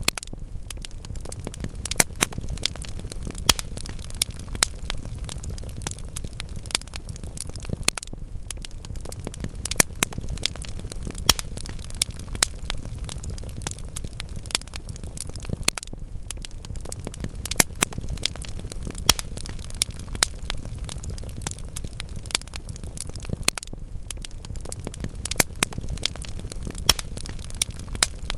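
Wood fire burning in a fireplace: a steady low rumble of flames with frequent irregular crackles and sharper pops from the logs.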